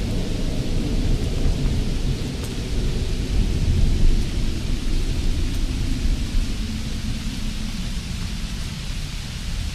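A steady hiss over a deep rumble; the rumble swells about three to four seconds in, then slowly eases off.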